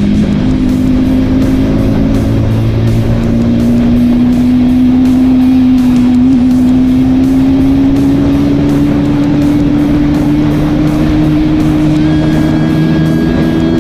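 KTM Duke 200 single-cylinder engine being ridden, its exhaust note loud and steady, with the revs climbing slowly and evenly throughout.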